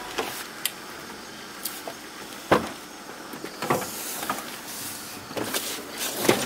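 Scattered knocks and clicks over a faint steady hiss, the loudest about two and a half seconds in and several more close together near the end.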